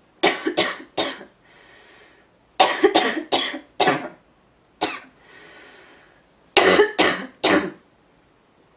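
A woman coughing from illness in repeated fits, each a run of three to five quick coughs with a single cough in the middle. Between the fits come audible drawn-in breaths.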